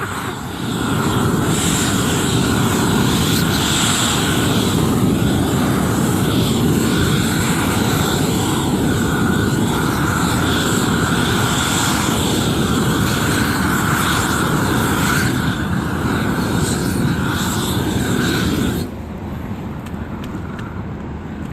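Propane roofing torch burning with a steady, loud roar that starts about a second in and cuts off sharply near the end.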